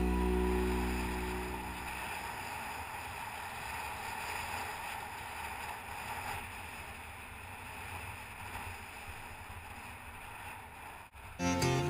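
Steady rushing wind and road noise on a bicycle-mounted camera's microphone while coasting downhill. Music fades out in the first second or two, and another song with acoustic guitar starts just before the end.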